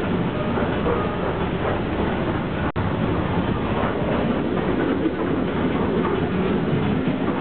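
Running noise of a moving passenger train heard from inside a sleeper carriage: a steady rumble and rattle of the car on the rails. It drops out for an instant about two and a half seconds in.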